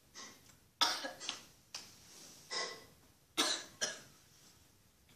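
A girl coughing in a string of short, sudden coughs, about six to eight, with pauses between, as if a bit of sweet has gone down the wrong way.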